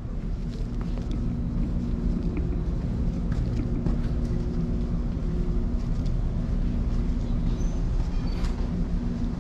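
Low, steady drone of a large overnight car ferry's engines and onboard machinery, heard inside its passenger deck. A few hum tones hold steady over the rumble.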